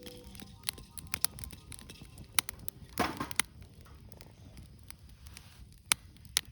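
Wood bonfire crackling, with sharp, irregular pops and a short, denser burst of crackling about three seconds in.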